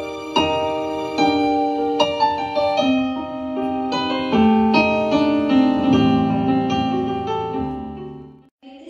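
Background piano music: a slow melody of struck notes over held chords, fading out near the end.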